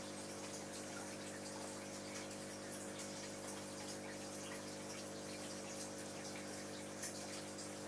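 Aquarium filter running: a steady trickle and bubbling of water with faint scattered pops, over a steady low hum.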